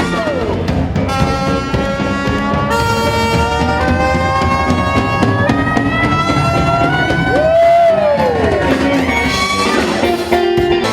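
Background music: an instrumental passage of a pop song, with long held horn-like notes that bend in pitch over guitar and a steady beat.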